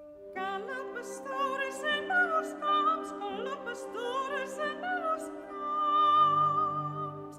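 Background music: operatic singing, a high voice over instrumental accompaniment, holding a long note near the end.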